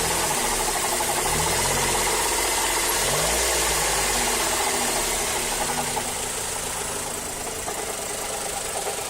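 Mazda3 2.0-litre four-cylinder engine running, with a rapid knocking that keeps time with engine speed, a little quieter over the last few seconds. The owner is not sure whether the knock comes from the engine itself or an accessory, and suspects the A/C compressor clutch.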